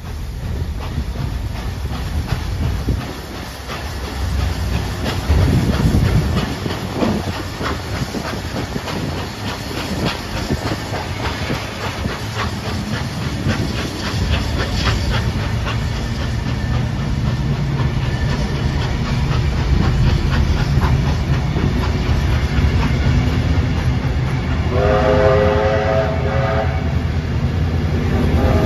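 Heritage passenger train pulling out: steel wheels clicking rhythmically over rail joints as the carriages roll past. Steam hisses at the start. From about halfway, the low steady running of a diesel locomotive at the rear of the train grows louder. A whistle sounds briefly about 25 seconds in.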